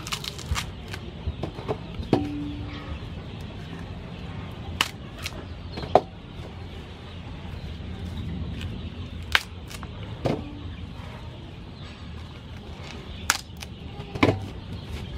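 Husks being pulled and snapped off ears of white corn by hand, a series of sharp crisp snaps a few seconds apart. About a second before the end, a husked cob knocks against an aluminium basin as it is set down.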